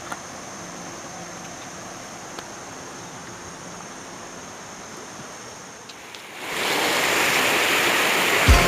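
Waterfall's rushing water: a faint, steady hiss that jumps suddenly to a loud, full rush about six and a half seconds in.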